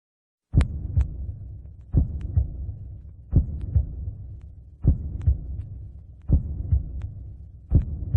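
A heartbeat-like sound starting about half a second in: pairs of deep thumps repeating about every second and a half over a steady low rumble.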